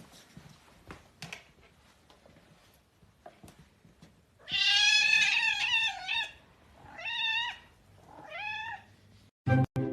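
A cat meowing three times: one long, drawn-out meow, then two shorter meows about a second and a half apart. Faint clicks come before the meows.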